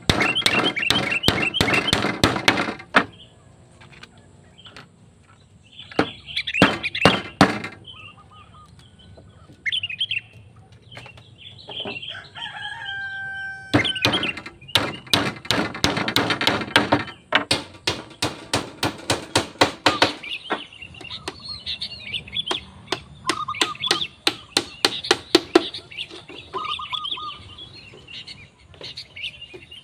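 Claw hammer driving nails into split bamboo slats: quick runs of sharp strikes, several a second, broken by short pauses. Birds call faintly between the runs.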